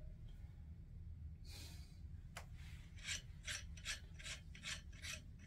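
Faint rhythmic rasping, a run of short scraping strokes about two to three a second starting a little past halfway, from hands adjusting a turntable's tonearm and anti-skate gauge. A brief soft hiss comes before it.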